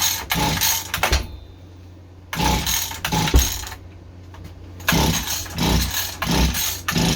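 Mantis mini tiller's small engine being cranked with its recoil pull cord, three quick sets of pulls with short pauses between, turning over without firing.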